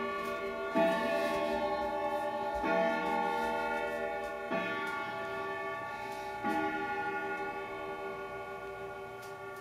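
Viking grandfather clock's hour strike: four ringing strikes about two seconds apart, each sustaining and slowly fading into the next, part of the clock striking eight o'clock.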